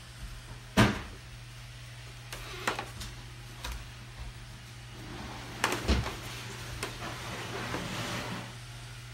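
Scattered knocks and thumps of steps on bare wooden stairs, the loudest about a second in and a pair near the middle, then a brief rustle, over a steady low hum.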